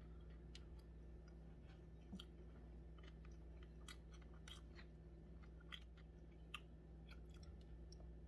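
Faint close-up chewing of sushi, with irregular small wet mouth clicks, over a steady low hum.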